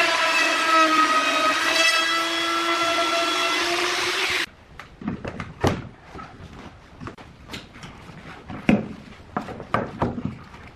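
A power tool's motor running with a steady high whine, which cuts off abruptly about four and a half seconds in. It is followed by scattered light knocks and clicks.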